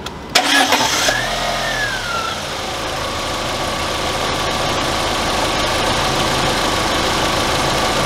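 2004 Volkswagen Passat's 1.8-litre turbo four-cylinder engine being started: a short burst of starter cranking, the engine catching about a second in, then settling into a steady idle.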